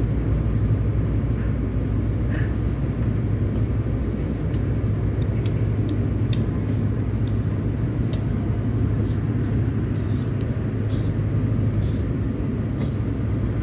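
KRL Commuter Line electric train heard from inside the carriage while running, a steady low rumble of wheels on the track. Scattered sharp ticks come in from about four seconds in.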